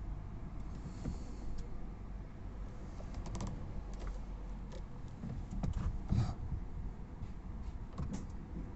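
Irregular light clicks and ticks over a low hum, from a 2016 Volvo S60 D4 whose battery is completely flat, its electrics glitching.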